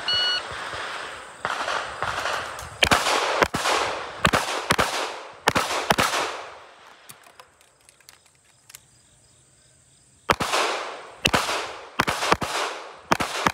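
Electronic shot timer beeps once, then an Alien Retro open-class competition pistol fires about a dozen rapid shots, mostly in pairs about half a second apart, each ringing out. There is a gap of a few seconds in the middle before a second string of five shots.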